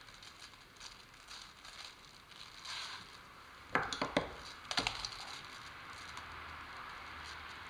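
Plastic sheeting crinkling as it is handled, with a quick run of sharp clicks and snaps about four seconds in and a few more about a second later.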